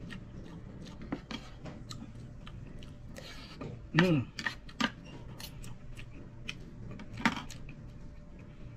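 Spoon and fork clinking and scraping on a ceramic plate while eating, a scatter of sharp clicks with chewing between, and a brief vocal sound from the eater about four seconds in.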